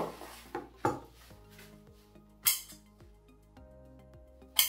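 Scissors snipping notches into a paper drawing strip: a few short, sharp cuts spaced irregularly, over soft background music.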